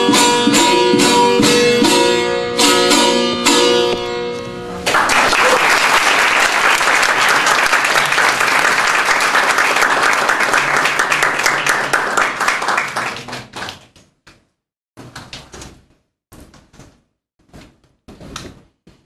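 The last notes of a duet on two long-necked lutes, plucked, stopping together about five seconds in. Audience applause follows and fades out over the next eight seconds or so, leaving a few short scattered sounds near the end.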